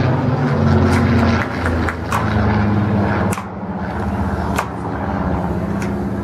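Piston engine of a single-engine propeller warbird in flight, a steady drone whose pitch and loudness drop about three seconds in as the aircraft moves away. Faint scattered clicks sound over it.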